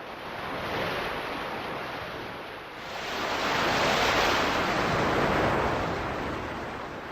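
Sea surf washing in, a steady rush of noise that swells twice, loudest around the middle.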